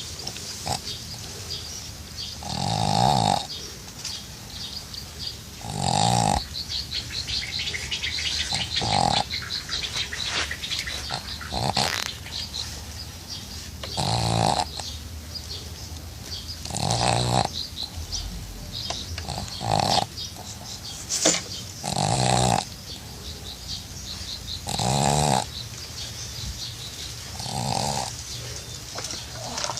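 A pug snoring in its sleep: about ten snores, one every two and a half to three seconds, each lasting under a second.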